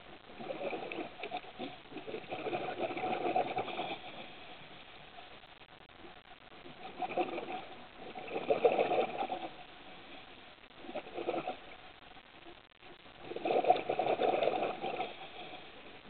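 Scuba diver breathing through a regulator underwater: three rounds of bubbling exhalations, about five seconds apart, each with a shorter burst just before it.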